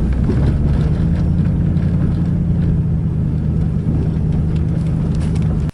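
Pickup truck running steadily while driving, a low even engine and road rumble that cuts off suddenly at the end.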